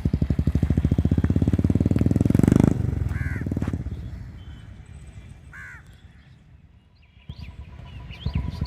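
Royal Enfield motorcycle with a peashooter exhaust and no dB killer, its fast, even thump building as it accelerates past, loudest about two and a half seconds in, then fading into the distance. A crow caws twice as it fades, and the engine sound comes back near the end.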